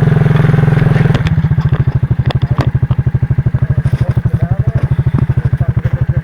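Engine idling close by with an even, rapid pulse. About a second in it eases off a little and settles into a steady idle, with a few light clanks over it.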